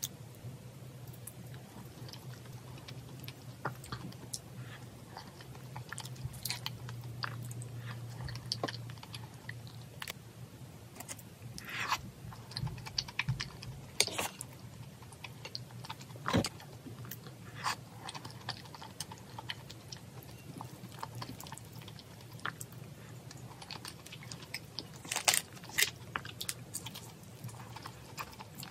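Close-miked eating sounds: chewing and mouth noises on soft cheesy porridge, with scattered clicks and a few sharper knocks as a wooden spoon scoops and taps against the pan. A low steady hum runs underneath.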